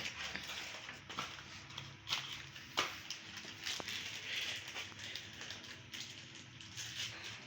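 Scattered clicks and rustling as small engine parts are handled, with a faint low hum underneath.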